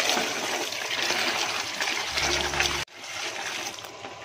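Tap water running and splashing onto peeled red onions in a bowl as they are rinsed. About three seconds in the sound drops suddenly and carries on more quietly.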